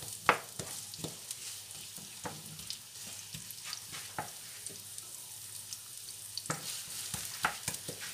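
Diced onions sizzling gently in oil in a non-stick frying pan as they sweat. A wooden spoon stirs them, knocking and scraping against the pan at irregular moments, most sharply just after the start.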